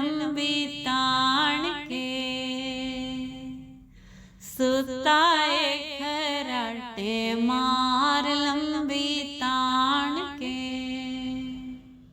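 A woman singing a Punjabi devotional shabad over music, drawing out long, wavering notes on the closing refrain. The singing dips briefly about four seconds in, resumes, and the song ends at the very close.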